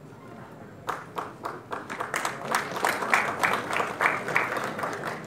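Audience clapping, starting about a second in and thinning out near the end.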